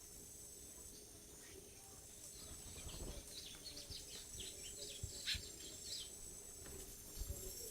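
A bird calls in a rapid series of short, high chirps for a few seconds, over a steady high-pitched insect drone. A few soft low thumps sound near the end.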